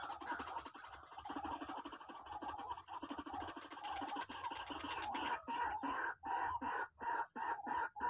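Rail calls: a rapid, harsh chattering series, breaking from about five seconds in into separate loud notes at about four a second.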